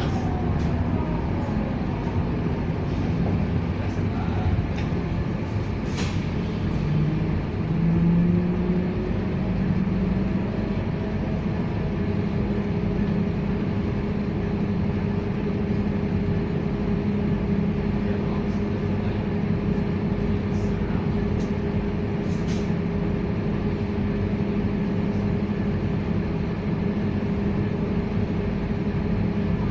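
Scania K230UB city bus on the move, its five-cylinder diesel engine and drivetrain running: a rising tone about 7 to 10 seconds in as it picks up speed, then a steady drone. Two brief sharp clicks or hisses come through, one near the start and one in the second half.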